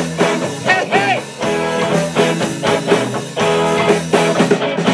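Live blues-rock band playing: electric guitar riff over drums and bass.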